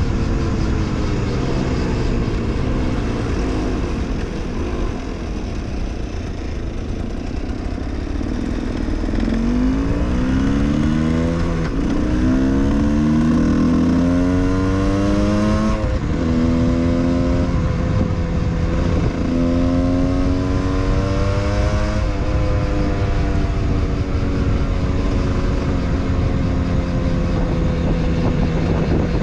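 Husqvarna WRE 125 two-stroke single-cylinder enduro engine under way. It slows with a falling note at first. About nine seconds in it accelerates through several gears, its pitch climbing and dropping back at each shift. It then holds a fairly steady cruising note that sags slowly near the end, with wind noise underneath.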